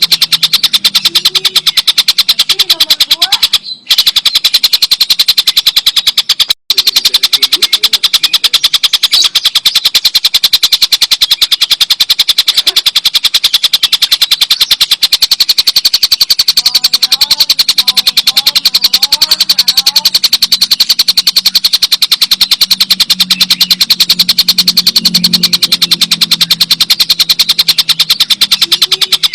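A tengkek buto kingfisher giving its long, loud cackling call: a very rapid, unbroken rattle of sharp notes, with a brief break about four seconds in. Faint chirps of other birds sound underneath.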